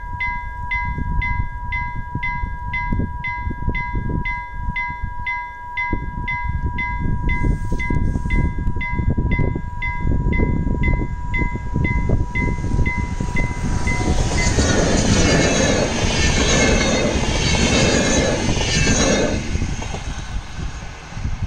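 Railway warning bell ringing about twice a second as a VR Sr2 electric locomotive with InterCity double-deck carriages approaches. From about 14 seconds the train passes close by, its wheels clattering loudly on the rails, then it fades away near the end.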